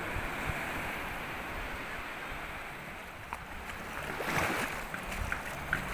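Small surf washing onto the beach, a steady hiss with a wave breaking and rushing up the sand about four seconds in.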